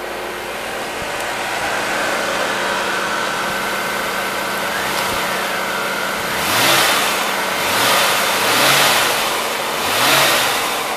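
Corvette C4's LT1 5.7-litre V8 running at a steady idle, then revved briefly about four times in the second half, each blip rising in pitch and falling back to idle.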